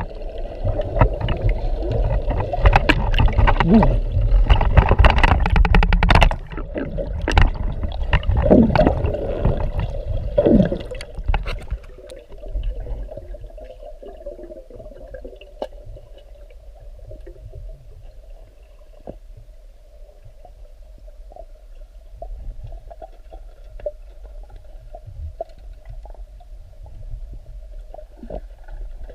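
Water gurgling and sloshing, with scattered clicks. It is loud and churning for roughly the first twelve seconds, then settles to a quieter steady water murmur.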